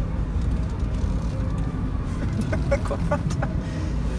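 Low, steady rumble inside a car crawling through city traffic. A little past halfway comes a brief run of about half a dozen short, high calls.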